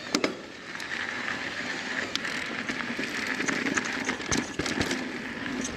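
Mountain bike rolling fast down a dirt singletrack: steady tyre noise on dirt and gravel with scattered clicks, knocks and rattles from the bike over rough ground.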